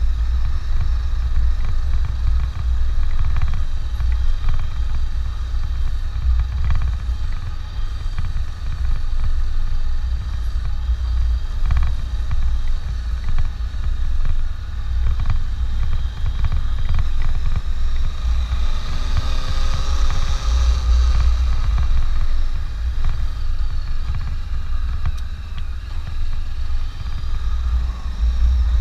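Honda CB500X parallel-twin motorcycle being ridden, with heavy gusting wind rumble on the microphone. A higher engine note swells for a few seconds about two-thirds of the way through.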